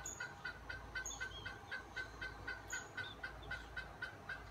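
Hens clucking in an even, repeated rhythm of about four clucks a second, the noise hens make when they are trying to lay eggs.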